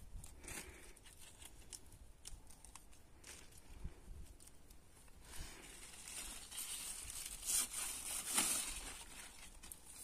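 Kenger thistle stems and spiny leaves being picked and peeled by hand: soft rustling and tearing. It gets fuller from about halfway through, with a couple of louder tears.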